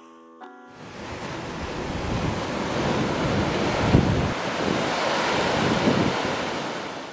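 Sea surf surging and breaking against the shore, a loud, rushing wash that swells in about a second in and peaks around four seconds in, with wind buffeting the microphone.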